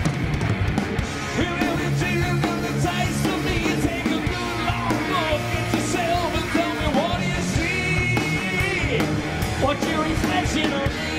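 Heavy metal band playing live: distorted electric guitars, bass and drums, with a lead guitar bending notes and holding a wavering high note about two-thirds of the way through.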